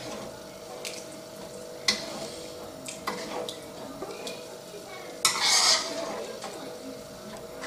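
Metal ladle stirring thick tomato meat sauce in a wide metal pan: wet stirring, with a few sharp clinks of the ladle against the pan and a louder scraping stretch about five seconds in.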